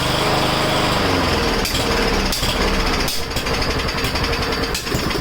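Powermore 140cc overhead-valve single-cylinder push-mower engine running, its speed dropping in the first second, with four sharp pops through it.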